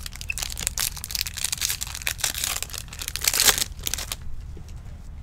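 Foil trading-card pack wrapper being torn open and crinkled in the hands, a dense crackling that stops about four seconds in.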